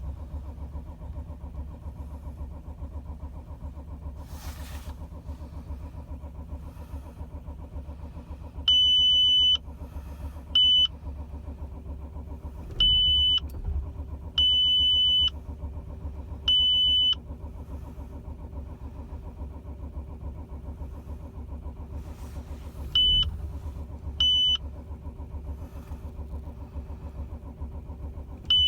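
Audi A6 2.7 TDI V6 diesel engine running with a steady low rumble. A loud, high electronic beep sounds on and off about seven times, in uneven lengths.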